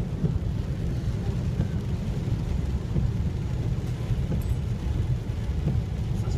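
Steady low rumble heard inside a car cabin as the car drives through deep floodwater in heavy rain: water surging against the car, mixed with engine and road noise.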